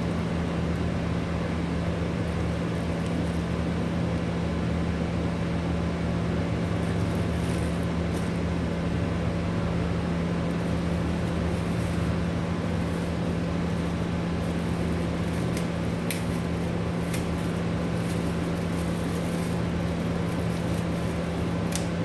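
Steady mechanical hum with a strong low drone, like a running motor or fan, with a few faint clicks about seven and sixteen seconds in and near the end.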